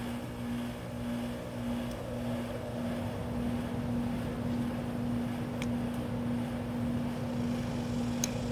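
A motor or engine that has just started, running with a steady, even hum.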